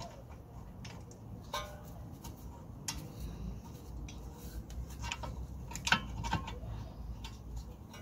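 Scattered metal clicks and clinks as a front brake caliper is worked back over new pads and its bolt fitted by hand. A few knocks are sharper, one with a brief metallic ring.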